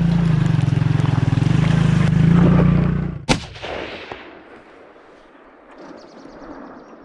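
Quad bike engine running at low revs with a fast, even exhaust pulse as the bike crawls over a wet rocky track, then cut off about three seconds in by a single sharp shot-like bang whose echo dies away over about a second.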